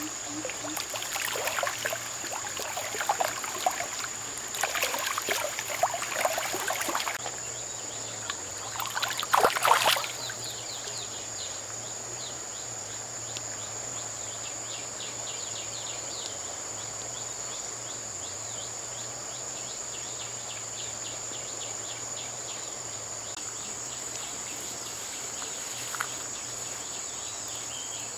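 Stream water splashing and running over gravel in irregular bursts for the first ten seconds or so, under a steady high-pitched insect drone. After that only the insects remain: the continuous high drone with a fast run of short chirps, and one click near the end.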